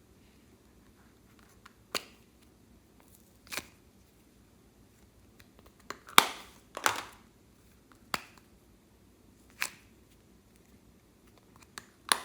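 Clear slime being handled, giving about seven short, sharp pops spaced irregularly a second or two apart.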